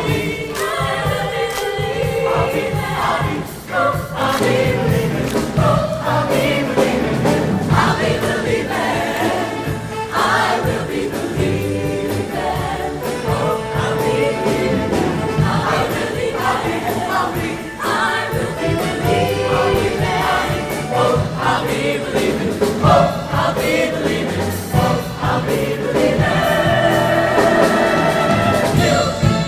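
High-school show choir singing in full harmony, ending on a long held chord that cuts off sharply at the end.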